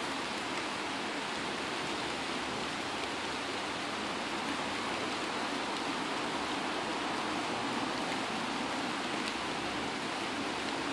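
Steady rain falling on trees, a dense even hiss of drops with a few faint separate drop ticks.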